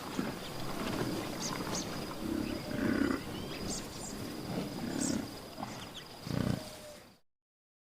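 Lion giving a series of short, low grunting roars, several in a row, before the sound cuts off suddenly about seven seconds in.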